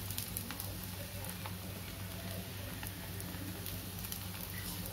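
Gram-flour batter cooking on a hot oiled iron tawa: a faint steady sizzle with many small scattered crackles, over a low steady hum.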